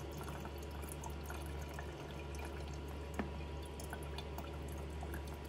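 Used isopropyl alcohol poured from a plastic bottle into a plastic funnel lined with paint filter paper, trickling and dripping softly through the filter into the bottle below. A small sharp tick about three seconds in.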